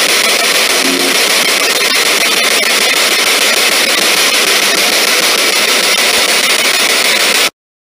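Loud, steady radio static from a spirit box sweeping through stations, played through a small Altec portable speaker, with a few faint clicks from the sweep. It cuts off suddenly near the end.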